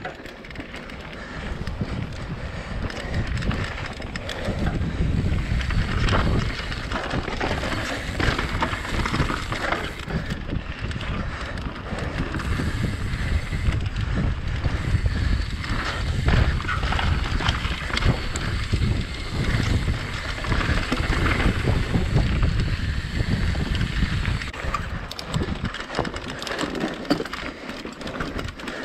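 Mountain bike riding along a dirt trail: tyres rolling over dirt and rocks, with frequent short rattles and clicks from the bike and wind rushing over the microphone.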